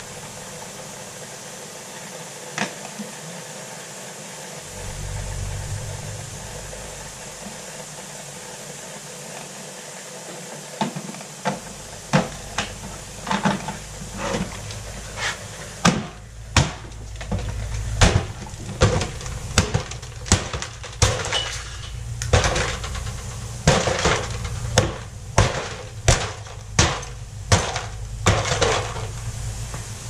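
A coffee maker being smashed apart with a rapid series of hard blows: sharp cracking impacts that begin sparsely about halfway through, then come one or two a second for the last dozen seconds.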